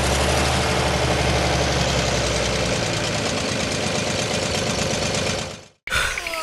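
An engine idling steadily with a low, even rumble, fading out near the end.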